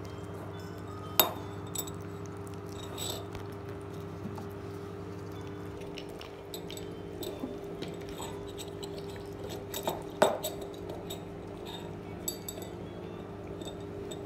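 Sharp clinks of a small spoon and white dish knocking on a wooden table as two cats eat from the dish. The loudest clinks come about a second in and about ten seconds in, with lighter ticks between, over a steady low hum.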